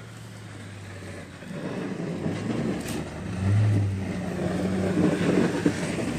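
A motor vehicle's engine running with a steady low hum, growing louder from about a second and a half in as it comes closer.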